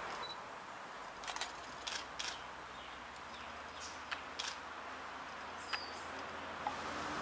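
Outdoor creekside ambience: a steady background hiss with a handful of short, sharp clicks scattered through it and a couple of brief, high bird chirps.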